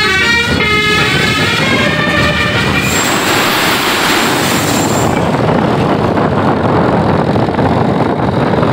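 Bus 'telolet basuri' musical horn playing a multi-note, flute-like melody that stops about two and a half seconds in. The loud rush of the bus going past follows, with a thin high hiss for a couple of seconds.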